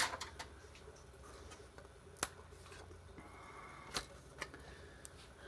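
A handful of sharp clicks and taps from small circuit-board parts being pulled off and set down by hand, over a faint steady low hum.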